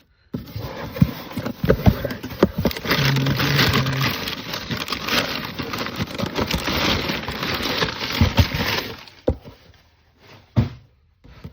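Packaging being torn open and handled: loud crinkling and crackling with many sharp clicks, which dies away about nine seconds in and is followed by a few separate knocks.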